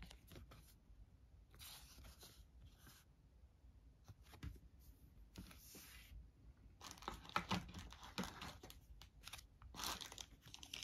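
Faint rustling and crinkling of paper and cardboard game pieces being handled, with light taps. It grows busier from about 7 s in.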